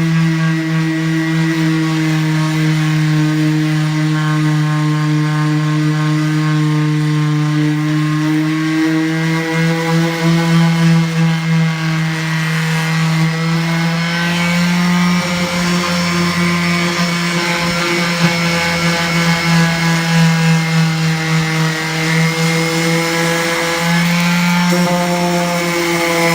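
Electric power tool motor running continuously with a steady hum, its pitch sagging slightly and recovering now and then as it is worked under load.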